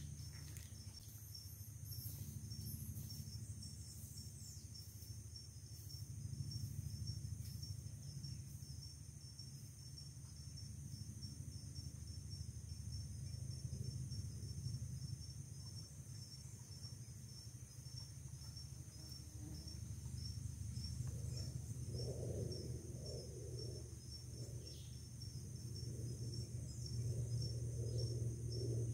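Insects trilling without a break, a high chirring with a fast, even pulse, over a low steady rumble. Lower, irregular sounds join in over the last eight seconds or so.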